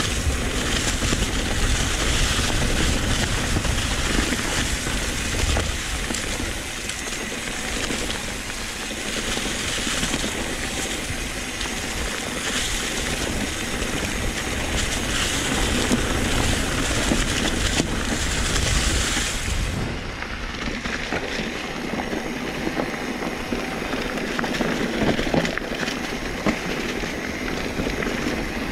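Mountain bike rolling downhill on a forest trail, its tyres running through dry leaf litter and over dirt and gravel in a continuous rushing crunch. The high hiss thins out about two-thirds of the way through, as the trail turns from leaves to bare dirt.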